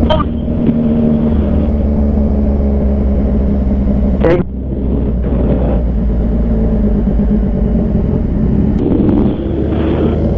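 Motorcycle engine idling steadily with a deep, even rumble, broken by a brief sharp sound just after the start and a louder one about four seconds in.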